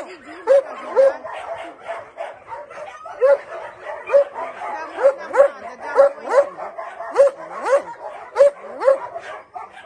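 Two large dogs barking in a string of short, sharp barks, about one or two a second, with a brief pause about two seconds in.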